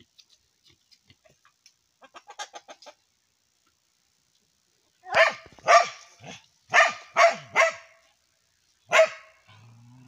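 A dog barking, seven sharp barks in the second half: six in quick succession and one more about a second later, after a quick run of faint short ticks.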